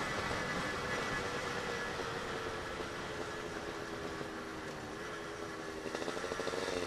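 Suzuki Satria two-stroke motorcycle engine with an AHRS racing exhaust, its pitch sliding slowly downward as the bike slows, under a steady wind rush.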